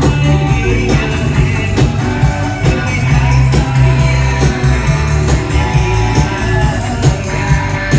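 Live band playing a rock-style song, with heavy bass, drums and electric guitar.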